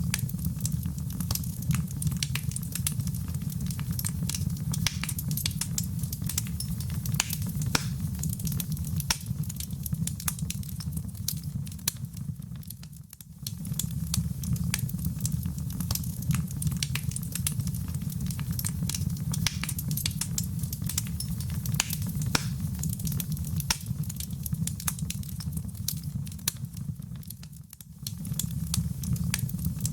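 Wood fire in a fireplace burning with a steady low rumble and dense, irregular crackling and popping. The sound dips briefly twice, about halfway through and near the end.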